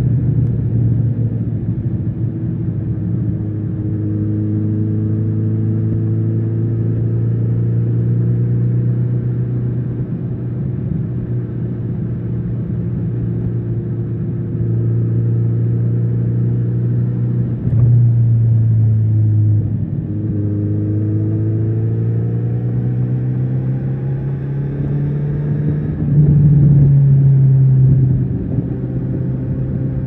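Kawasaki Z900RS inline-four engine pulling the motorcycle along at steady cruising revs. About two-thirds through the note dips briefly and then climbs as it accelerates, and it is louder for a couple of seconds near the end.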